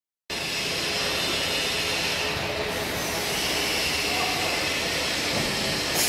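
Automatic glass bottle washing machine and its infeed conveyor running, a steady, even machine noise.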